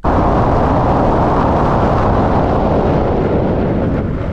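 Tyre and wind noise from a camera mounted by a Subaru Forester Wilderness wheel on Yokohama Geolandar tyres as the car drives over a rough road: a steady rushing noise, heaviest in the low end, that eases a little near the end.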